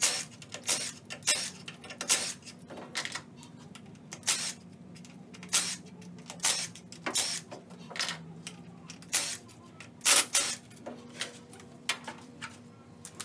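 Irregular sharp metallic clicks and clinks of bolts and a cordless tool being handled as the valve body bolts of a JF011E CVT transmission are taken out, with the loudest pair of clinks about ten seconds in.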